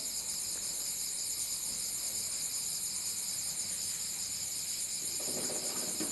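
A chorus of crickets chirring steadily at night, a continuous high, finely pulsing trill.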